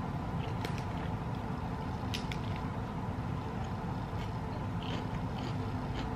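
Someone eating salad with a metal fork: a few faint clicks of the fork against the plate and chewing, over a steady low hum.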